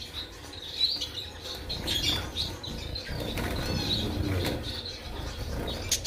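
Caged Bengalese finches and owl finches giving short high chirps every second or so, with wings fluttering.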